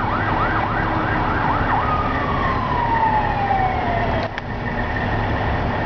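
Siren of an arriving fire department spill-response unit, cycling in a fast yelp about three times a second, then switched off and winding down in one long falling wail that dies out about four seconds in, ending with a short click. A low steady rumble runs underneath.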